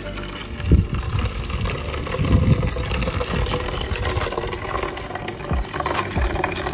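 Coconut milk pouring through a metal mesh sieve of blended coconut and trickling into a stainless steel bowl below, with a few low bumps, the loudest about two and a half seconds in.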